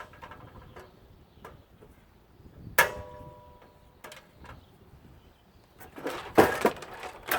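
Metal parts being handled: a sharp clink about three seconds in that rings briefly, and a burst of clattering near the end.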